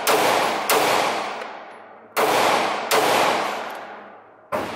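Pistol fired four times in two quick pairs, about a second and a half apart, each shot trailing a long echo off the walls of an indoor range.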